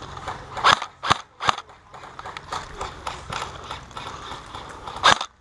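Airsoft gunfire: three sharp cracks in quick succession about a second in, and one more near the end, with fainter irregular clicks and rustle between.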